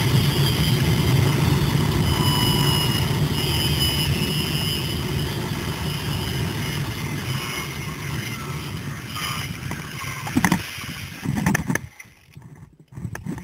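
Zipline trolley pulleys running fast along the steel cable with a rush of wind: a loud whir with a high whine, slowly easing as the rider slows. Near the end come two knocks as the trolley reaches the landing platform, and the whir stops.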